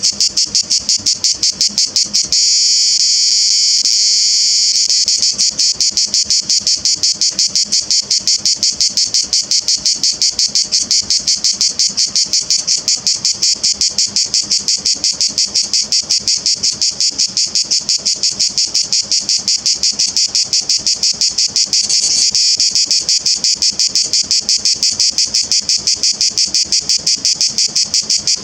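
A grey cicada (Cicada orni) singing: a loud, high, fast and even pulsing buzz. It runs into an unbroken buzz for a few seconds about two seconds in, and again briefly near the end.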